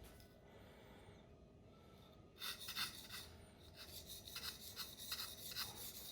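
Knife blade being stroked back and forth on a King Deluxe 800-grit waterstone, a quick run of short scraping strokes at about three a second that starts a couple of seconds in.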